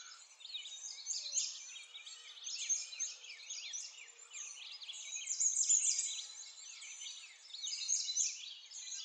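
Many small birds chirping and twittering at once: a dense, steady chorus of quick rising and falling chirps, all high-pitched.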